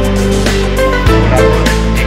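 Background music with a deep sustained bass and a beat about once a second.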